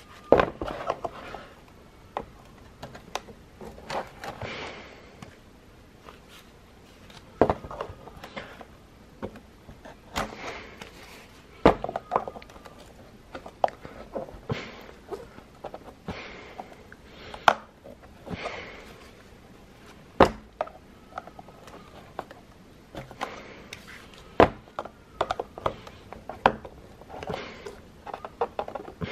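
Metal spanner clicking and knocking on the axle nut of a Valco Baby Snap stroller wheel while it is worked loose, with irregular taps and scrapes and some rustling as the plastic wheel is handled in a cardboard box. A few knocks are much sharper than the rest.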